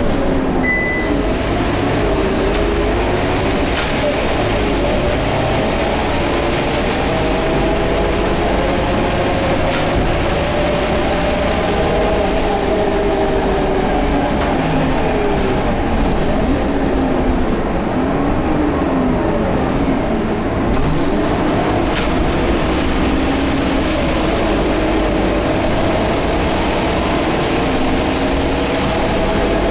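Scania K230UB bus pulling under power, its engine note rising and falling, with a loud high-pitched whine that climbs as it accelerates, holds, then drops away. This happens twice. The uploader suspects the turbo or the hub reduction axle as the source of the whine.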